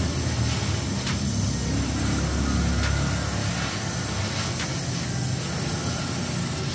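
Welding torch working on a car's exhaust pipe: a steady hiss with a few faint ticks, over a low hum.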